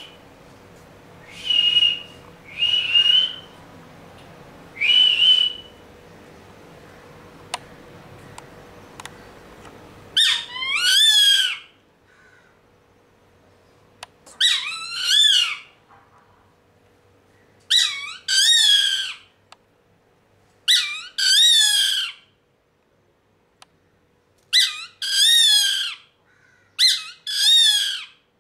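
A bird of prey calling: three short, high whistles in the first six seconds, then six wavering, quavering whistled calls, each about a second and a half long, a few seconds apart.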